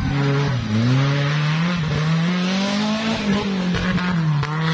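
Off-road 4x4 buggy's engine revving hard under load on a dirt track, its pitch dipping briefly near the start, then climbing steadily and holding high. A rushing hiss runs alongside the engine.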